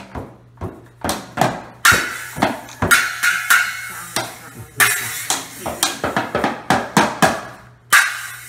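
A child banging on a Minnie Mouse toy drum kit with sticks, hitting the plastic drums and small cymbal in an irregular, unsteady beat. Several of the hits are cymbal crashes that ring on briefly.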